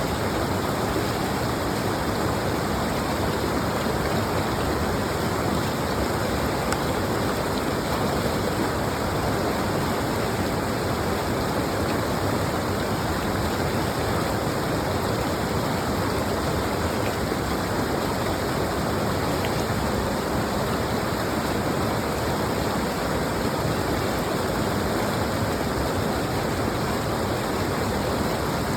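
Stream water rushing steadily, an even, unbroken wash of noise.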